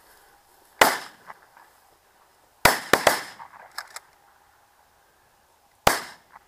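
12-gauge shotgun shots fired at a flushed bird: one shot about a second in, a quick pair close together near three seconds, and a last shot near six seconds.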